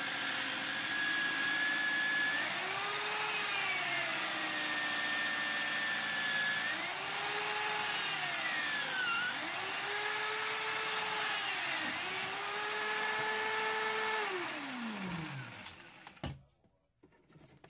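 Corded electric drill in a drill stand spinning a hole saw through wood. The motor's pitch drops several times as the saw bites and climbs again as it eases. About 15 seconds in it is switched off and winds down to a stop.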